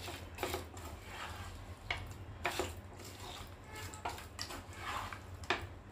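A spatula stirring and scraping fried chicken pieces, chillies and curry leaves around a non-stick frying pan: irregular scrapes and light knocks against the pan.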